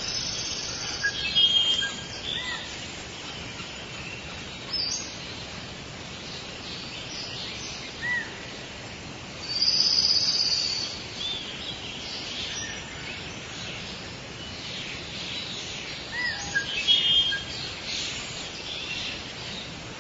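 Tropical rainforest ambience: a steady background hiss with scattered bird calls, short chirps and whistles here and there, a louder high call about halfway through lasting about a second, and a cluster of calls near the end.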